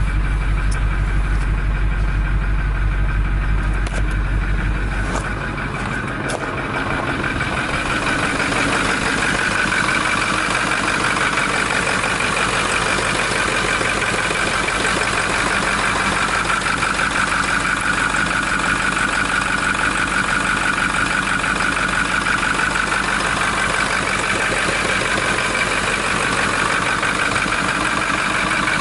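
Ford F-250 Super Duty's 6.4-litre Power Stroke V8 turbo diesel idling steadily. For the first few seconds it is a deep, muffled drone heard from inside the cab. After a few clicks it is heard under the open hood, brighter and with a steady high whine.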